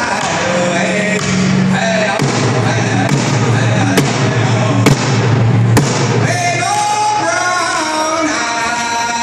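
A man singing a round dance song in full voice, accompanied by a frame hand drum. Three sharp knocks stand out about four to six seconds in.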